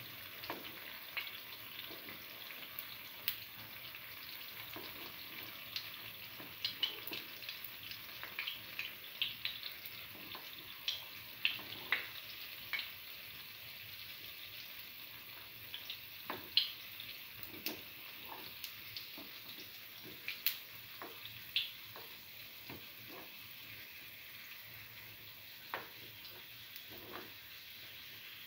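Garlic chickpea-flour fritters frying in shallow oil in a cavity pan: a steady sizzle with scattered sharp clicks and pops as a metal spoon turns them in their cups, the clicks most frequent in the middle stretch.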